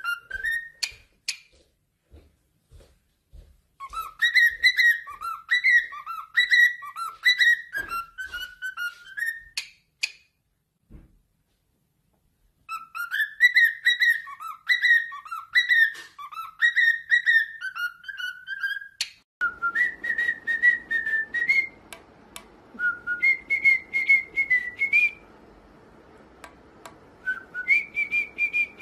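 Cockatiel whistling a tune in short, rising and falling phrases, in two runs with a few seconds' pause between them. Near the end, higher, steadier whistling tones sound over a background hiss.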